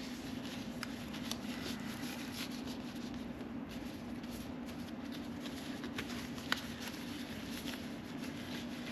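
Faint rustling and a few light clicks of work gloves being pulled off and on, over a steady low hum.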